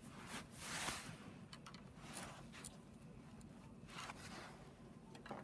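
Faint, short metallic scrapes and rattles from the BMW N54's oil and vacuum pump drive chain and sprocket being slid off by hand with a pick tool. The longest scrape comes about a second in, with a few shorter ones after.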